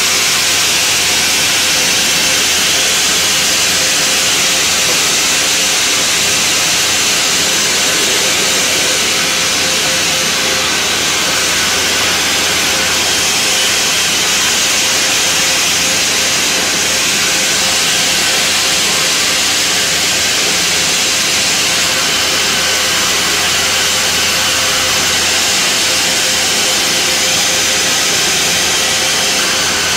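Large sawmill band saw running and cutting planks: a loud, steady hiss over a constant low hum.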